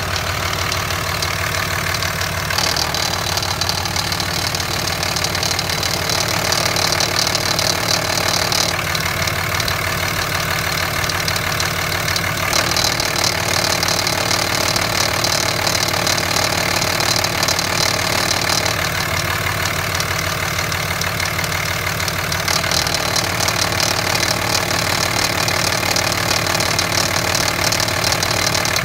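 2005 Cummins 5.9 inline-six turbodiesel idling with a rattling, grinding noise. A higher grinding hiss cuts in for about six seconds, drops out for about four, and comes back twice more.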